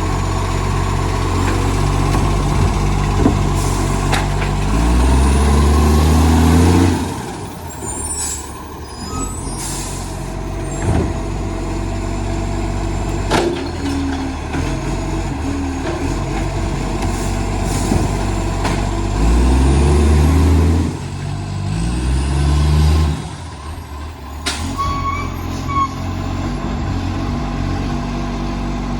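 Garbage truck's diesel engine running with a massive exhaust leak, revving hard three times: once about five seconds in and twice near the twenty-second mark, dropping back to idle between. A few short sharp clicks sound between the revs.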